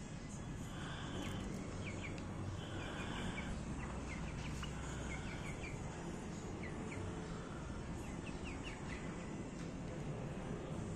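Outdoor ambience: short, high bird chirps come in scattered little runs over a steady low background noise.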